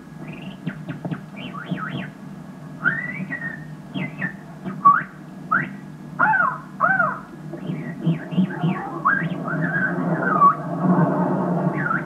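A person whistling imitations of bird calls: a run of short chirps and quick rising and falling whistled glides, over a steady low hum.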